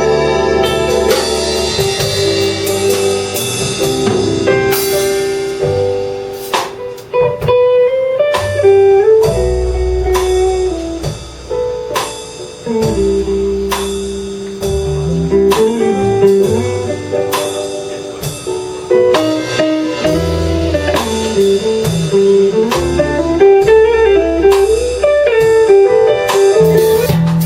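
Live instrumental band music: a guitar plays a lead melody with bent, sliding notes over a drum kit keeping a steady beat and a bass line underneath.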